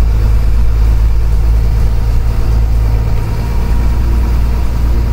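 Converted school bus's engine running steadily at low revs, with a deep, even hum, heard from the driver's seat inside the cab.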